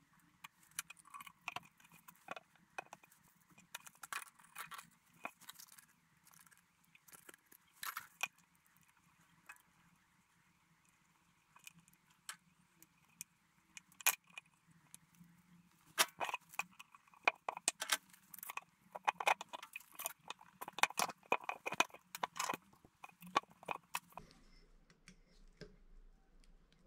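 Clear plastic wrap and tape crinkling and crackling as they are handled and peeled, in irregular bursts with small clicks, busiest in the middle stretch, over a faint steady hum.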